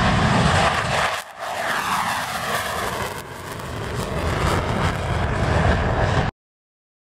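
F-16 fighter jet taking off and climbing away at full power with afterburner lit, a loud, steady jet engine noise. It dips briefly about a second in and again about three seconds in, then cuts off suddenly near the end.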